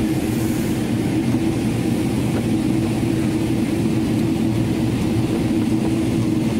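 Airliner cabin noise in flight: a steady rushing drone of engines and airflow, with a steady low hum underneath.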